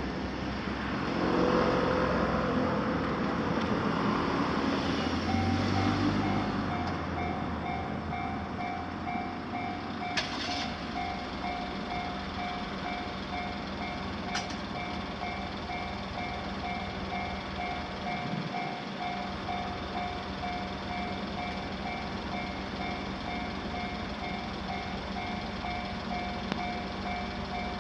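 Japanese railway level-crossing warning bell starting to ring about five seconds in, an electronic two-tone chime pulsing evenly and steadily: the signal that a train is approaching and the barriers are coming down. Before it, a vehicle passes over the crossing.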